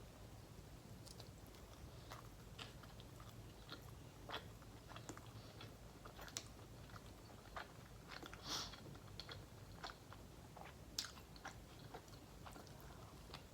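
Faint, close-miked chewing of a saucy Subway turkey sandwich: soft wet mouth clicks and smacks scattered throughout, one a little louder about eight and a half seconds in.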